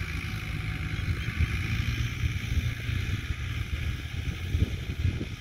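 Distant Fiat 640 diesel tractor running as it pulls a rotavator through the field, heard under an uneven low rumble of wind on the microphone.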